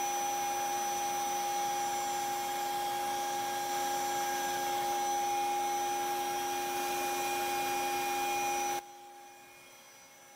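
CNC router spindle turning a large Amana carbide surfacing bit as it planes mesquite and epoxy: a steady high whine over a broad hiss of cutting and dust extraction. About nine seconds in it drops abruptly to a faint hum.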